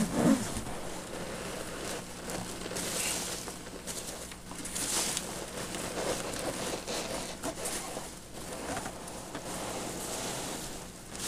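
Hands rummaging through packing peanuts and cardboard: an irregular scratchy rustle with many small clicks and crinkles, over a faint steady low hum.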